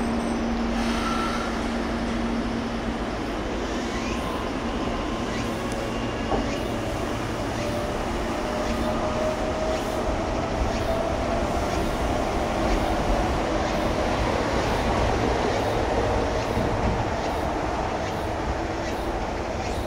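Meitetsu 3500 series electric train pulling away from a station platform. Its motors whine in tones that climb slowly in pitch as it picks up speed, over a steady rumble of running gear and faint wheel clicks on the rails.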